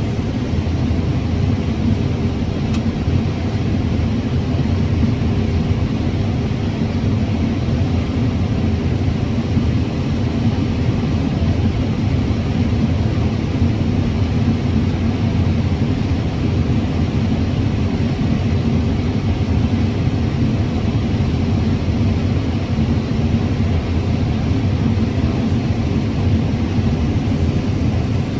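Combine harvester running steadily while harvesting corn, heard from inside the cab: an even, low engine and machinery rumble that does not change.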